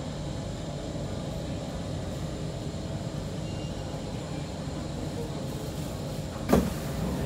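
Kawasaki C151 metro train running on the rail, heard from inside the car: a steady low rumble of wheels and running gear. About six and a half seconds in there is one sharp, loud clunk, and then the rumble grows a little louder with a steady low hum.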